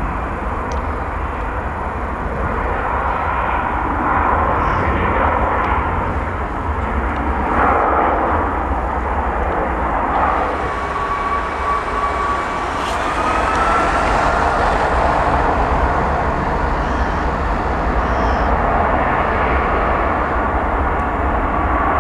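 Jet airliner engines running on the runway, a steady jet noise throughout. About ten seconds in a thin whine comes in and rises in pitch as the engines spool up for takeoff.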